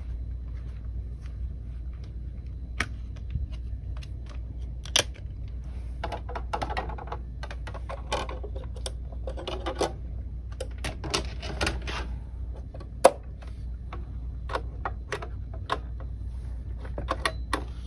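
Clicks, snaps and rattles of a plastic CD jewel case and a wall-mounted CD player's clear plastic cover as a disc is taken out and set on the player. The sharpest click comes a little past halfway, over a steady low hum.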